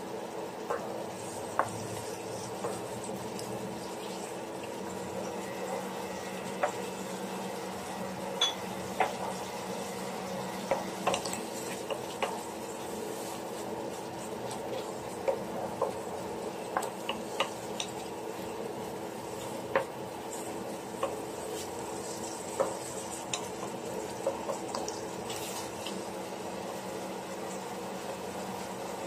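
Wooden spoon stirring sliced ham and mushrooms in butter in a stainless steel pan, knocking and scraping against the pan at irregular intervals over a steady hum.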